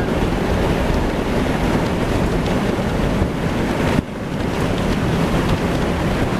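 Steady wind rush and road noise inside a Toyota 60 Series LandCruiser driving along an outback dirt road, with wind buffeting the microphone. The noise dips sharply for a moment about four seconds in.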